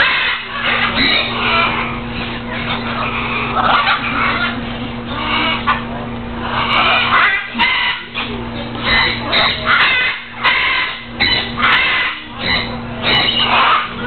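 Parrots squawking, harsh calls one after another over a steady low hum.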